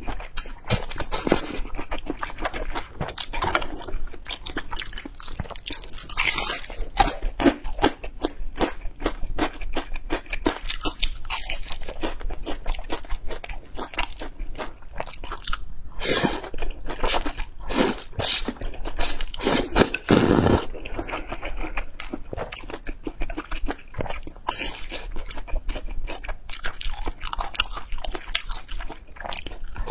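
Close-miked eating: noodles and soup slurped from a bowl, and wet chewing and smacking with many short clicks. There are longer slurps about 6 seconds in, at about 16 seconds, and at 18–20 seconds.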